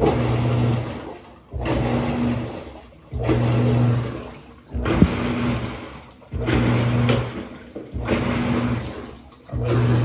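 Panasonic NA-F160B6 top-load washing machine agitating in the wash stage of its self-test. The motor hums in strokes of about a second and a half, with short pauses between them, while the water churns in the drum.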